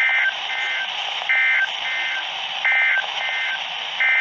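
Emergency Alert System (SAME) digital data bursts on NOAA Weather Radio: three short two-tone bursts about a second and a third apart, the end-of-message code, each followed by a fainter echo. A longer burst starts near the end, the header of the next alert. Steady radio hiss lies underneath.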